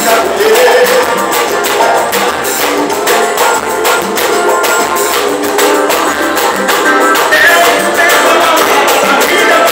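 A live band playing: a male singer sings into a microphone over strummed acoustic guitar and a steady run of percussion hits.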